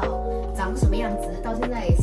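Background music: held synth notes and a moving melody over deep bass kicks that drop sharply in pitch, about one a second.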